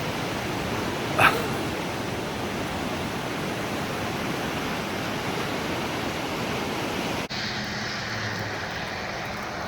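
The Row River in flood, rushing out below Dorena Lake as a steady roar of water. A dog barks once about a second in. About seven seconds in the rushing drops out for a moment and comes back duller.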